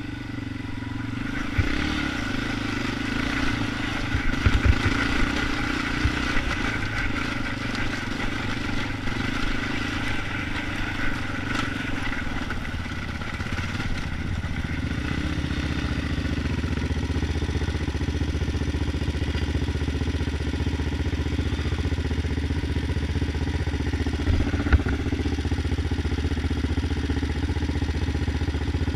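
Yamaha Raptor 250 ATV's single-cylinder four-stroke engine running under way, dropping to lower, steadier revs about halfway through, with a few short knocks along the way.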